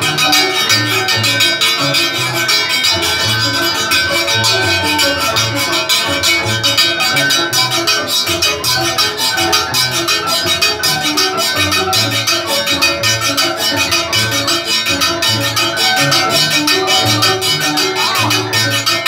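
Hand-cranked Curaçao barrel piano (orgel) playing a lively tune with a steady, regular bass beat, with hand percussion rattling along in time.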